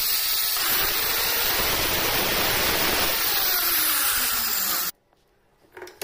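Handheld electric cutter with a toothed wood-cutting blade running at full speed and sawing through a thin wooden board. The sound grows coarser about half a second in as the blade bites into the wood, then cuts off suddenly about five seconds in.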